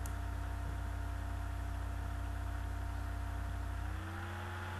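Steady low electrical hum with a few faint steady tones. About four seconds in, the deepest part of the hum drops away and the tones rise slightly.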